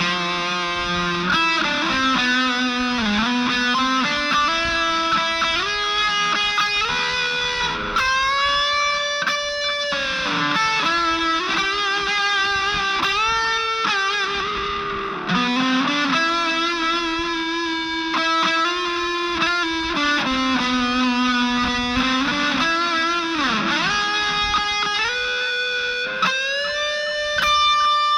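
Epiphone Les Paul 100 electric guitar played through an Aroma TG-08 mini amplifier with a distorted tone. It plays single-note lead lines with string bends and vibrato, and ends on a long held note.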